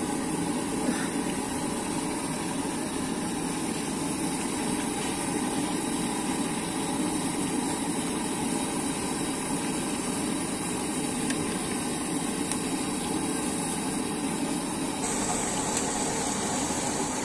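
Steady sizzle of cauliflower fritters deep-frying in hot oil in a large iron kadai.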